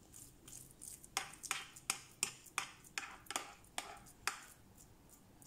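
Metal spoon scraping and tapping against an enamel baking pan while pressing ground-meat mixture into loaf shape: a run of short light clicks, about three a second, stopping a little after four seconds in.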